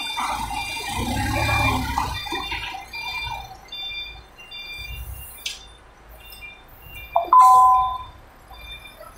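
TCM forklift moving a load, its warning beeper sounding short high beeps about two a second over the low running of its engine. About seven seconds in comes a short, loud two-note honk.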